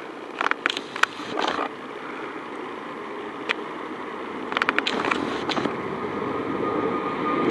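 Jet noise from a climbing Airbus A380's four turbofan engines at takeoff thrust: a steady rush that grows louder toward the end. Short bursts of rapid sharp clicks cut in about half a second in and again around the middle.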